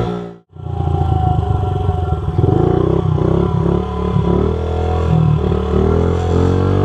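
Small pit-bike engine revving, its pitch rising and falling, with a sudden dropout to silence just under half a second in.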